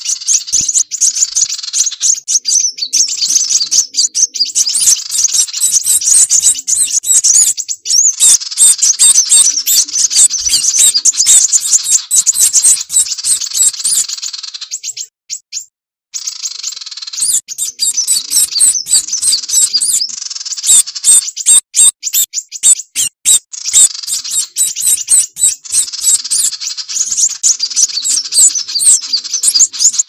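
Looped bird-lure recording of sunbird (kolibri wulung) calls mixed with another small bird's calls. Rapid, high-pitched chips and trills follow one another densely, and break off briefly about halfway through.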